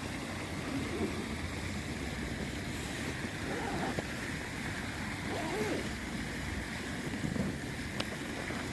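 Steady rushing of a waterfall, a continuous even wash of water noise.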